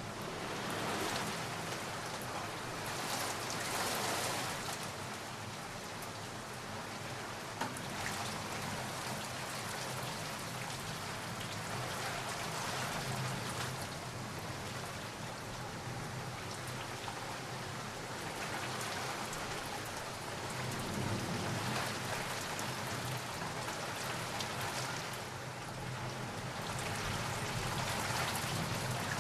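Steady rain falling, a continuous hiss of drops on surfaces that swells and eases every few seconds.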